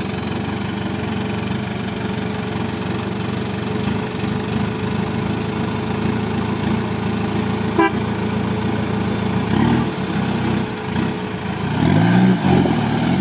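Off-road Mahindra jeep's engine running steadily at low revs as it crawls up a muddy trail, getting louder near the end.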